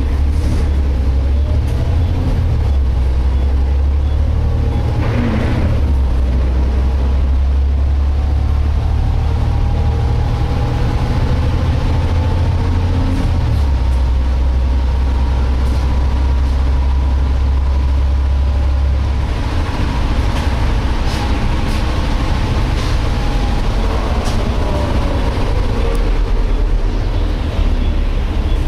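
Volvo B7TL double-decker bus under way, heard from inside: the diesel engine runs low and steady, its note changing twice, over a whining tone from the differential that rises and falls in pitch with road speed. The whine is the strange diff noise the bus is known for, a sign of a differential fault.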